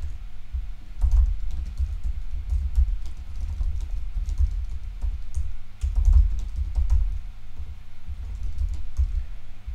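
Typing on a computer keyboard: an irregular run of keystroke clicks with low thuds, over a steady low electrical hum.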